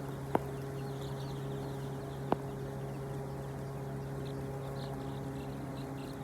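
Chickens chirping in short, high, scattered calls over a steady mechanical hum, with two sharp clicks, one just after the start and one about two seconds in.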